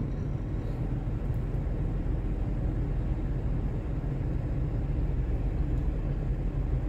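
Steady low hum of a car's engine idling, heard inside the cabin.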